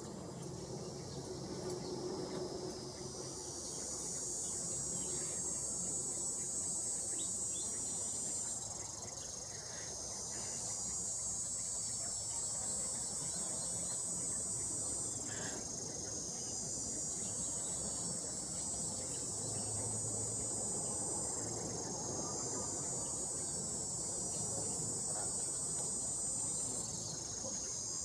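Insects shrilling high and continuously, in four swells that build up, hold for about five seconds and fade again, over a faint low outdoor hum.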